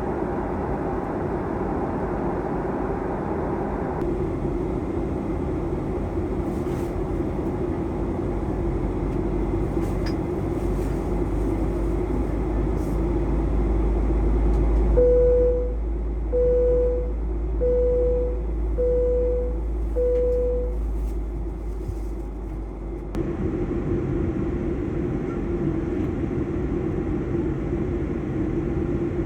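Steady drone of an airliner cabin in flight: jet engines and airflow. Partway through a deeper rumble comes in, and five short, evenly spaced beeps sound about one every 1.3 seconds.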